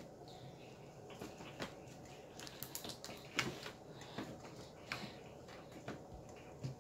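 Slime being squished and pulled by hand, making faint, irregular sticky clicks and pops.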